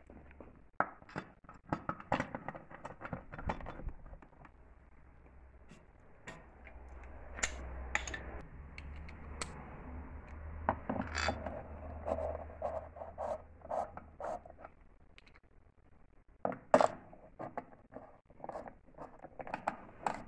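Steel wheel bolts clinking and scraping as they are handled, pushed through the holes of a plastic hubcap and threaded into the wheel hub by hand: an irregular run of small metallic clicks and scrapes, with one sharper click near the end.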